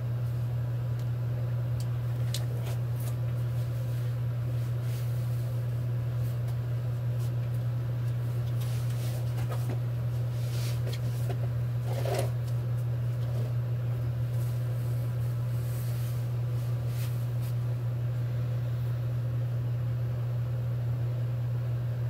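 A steady low hum runs unchanged throughout, with a few faint clicks and small handling noises over it.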